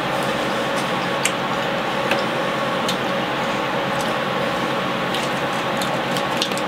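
People chewing chicken nuggets: a few scattered, irregular light clicks over a steady background hiss and faint hum.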